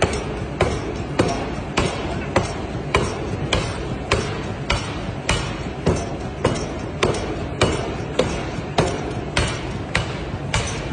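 Forging hammer striking metal in a steady rhythm, a little under two blows a second, each blow ringing briefly, over a continuous low machinery rumble.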